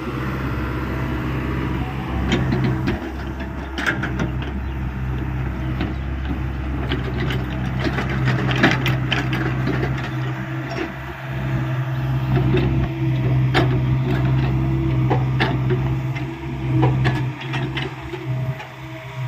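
Hyundai 85A excavator's diesel engine running steadily while its bucket digs, with repeated knocks and scrapes of soil and stones.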